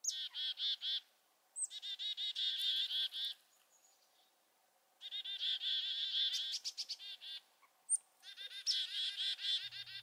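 Black-capped chickadee giving its chick-a-dee-dee-dee call four times, each a short high note followed by a fast run of harsh, repeated "dee" notes, with short pauses between calls.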